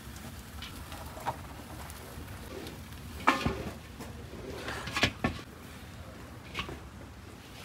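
A few sharp knocks and scuffs as a tandoor oven packed with skewered lamb is closed off and wrapped in heavy cloth sacking. The loudest knocks fall about three seconds in and again about five seconds in, over a low steady rumble.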